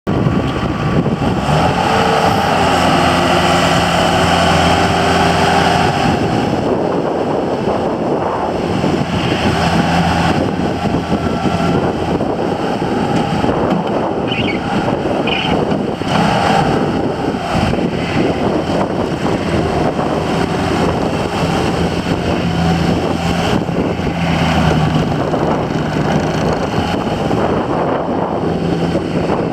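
Bobcat T190 loader's diesel engine running, a loud steady drone whose pitch shifts a little now and then.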